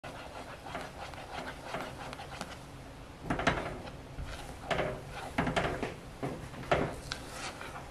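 Silicone spatula stirring and scraping thick, melting marshmallow syrup around a saucepan, with several louder scrapes and knocks against the pan in the second half.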